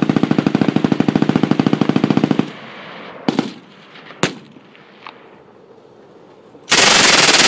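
PPSh-41 submachine gun (7.62×25 mm Tokarev) firing on full auto: a long burst of about two and a half seconds at a very fast rate of fire, then two single sharp reports, and another loud burst of about a second near the end.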